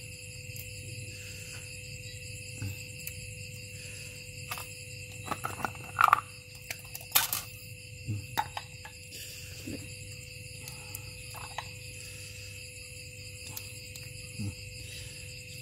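Steady high chorus of insects, with scattered sharp clicks of snail shells and a fork knocking together as the meat is picked out. The loudest clicks come about six and seven seconds in.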